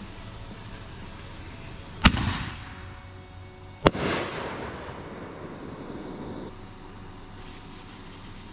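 A 90-gram canister artillery shell fired from a fiberglass mortar tube: the lift charge goes off with a sharp boom about two seconds in, and the shell bursts in the air with a second, slightly softer bang almost two seconds later. A couple of seconds of fading noise follow the burst.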